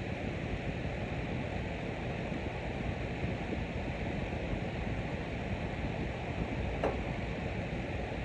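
Fan running: a steady, even rush of air with one faint click near the end.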